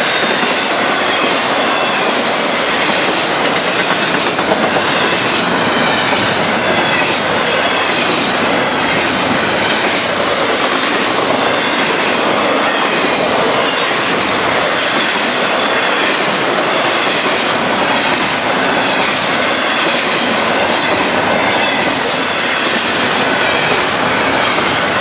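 Double-stack container cars of a freight train rolling past close by: a steady, loud clatter and rumble of steel wheels on the rails, with some high wheel squeal.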